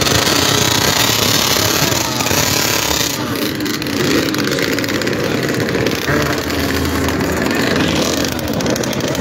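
Engines of several small minicross motorcycles running and revving together at the start gate, with a dense steady noise underneath.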